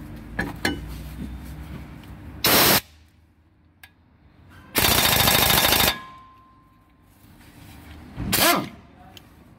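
Pneumatic impact wrench hammering on a bolt at a front wheel hub in bursts: a short burst about two and a half seconds in, a longer one of about a second near the middle, and another short burst near the end, with light metal clicks before the first.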